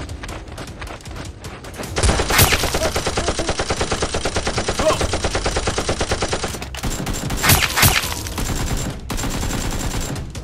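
Rapid automatic gunfire, a sound effect laid over Nerf-blaster action: lighter scattered shots at first, then one long unbroken burst of about five seconds starting about two seconds in, followed by two loud single shots close together near the end.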